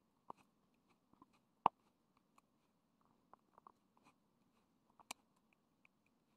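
A few faint, scattered clicks and taps over quiet room noise, the sharpest about one and a half seconds in and another about five seconds in.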